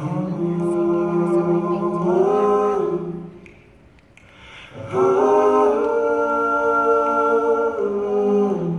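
A man's voice singing wordless long held notes, a cappella: two sustained phrases of about three to four seconds each with a short pause between, each stepping to a new note once or twice before it ends.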